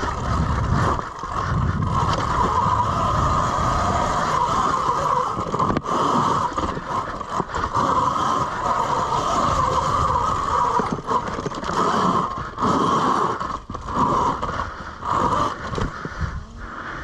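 Electric dirt bike ridden off-road: a steady motor whine over a heavy rumble of wind buffeting the microphone.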